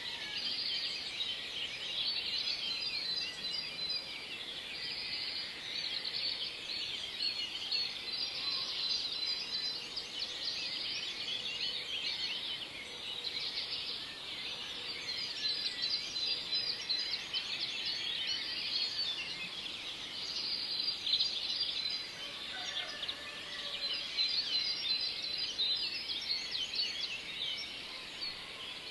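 A dense chorus of many small birds chirping and twittering without pause, with a thin, steady high note that comes and goes.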